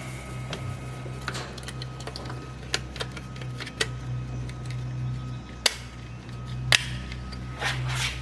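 Hand work on a refrigerator control board: scattered sharp clicks and taps of plastic connectors and parts being fitted, a few louder than the rest, over a steady low hum.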